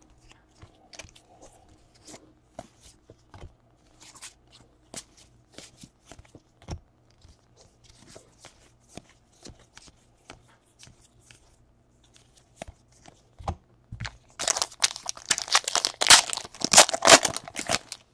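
Light clicks and taps of trading cards being handled and flipped through. About fourteen seconds in comes a loud crinkling rip of a foil card-pack wrapper being torn open, lasting a few seconds.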